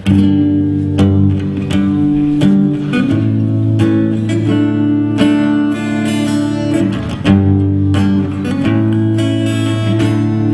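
Solo acoustic guitar strumming chords in a steady rhythm, the intro of a song, with the chord changing every few seconds. It starts abruptly at the outset.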